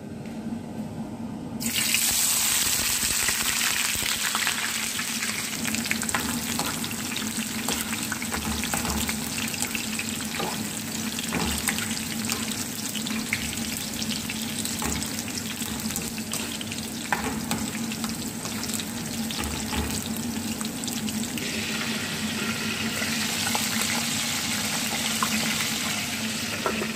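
Sliced red onions sizzling in hot cooking oil in a frying pan, starting suddenly about two seconds in as they hit the oil, with a dense crackling hiss and small spatters while a spatula stirs them. The sizzle turns brighter and hissier about twenty seconds in.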